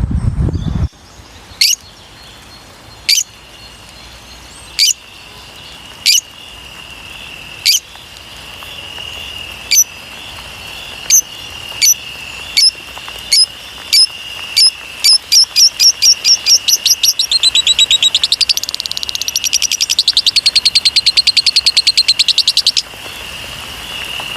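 A bird giving sharp high chirps, spaced out at first, then speeding up into a rapid series and a long dense trill, over a steady high-pitched whine. A low rumble cuts off about a second in.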